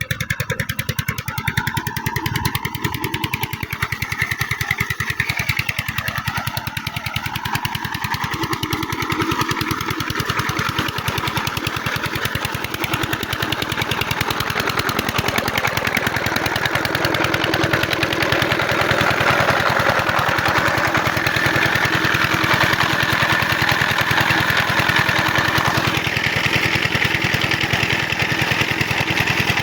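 12 hp diesel water-pump-set engine running with a fast, even knock that grows a little louder and steadier over the first quarter-minute.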